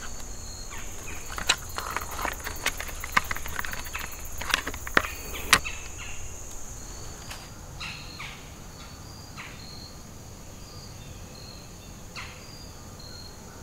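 Insects droning steadily at a high pitch with short chirps repeating about once a second. During the first half, a run of sharp clicks and rattles from a plastic trail camera being handled and set up, the loudest about five seconds in.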